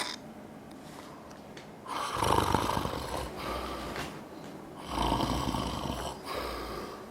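A man snoring loudly in his sleep: after a quiet pause of about two seconds, two snores about three seconds apart, the first the longer.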